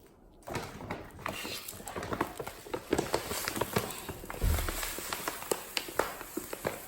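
Cat pawing and digging in granular bentonite clay litter: a gritty scratching full of irregular sharp clicks of the granules, starting about half a second in.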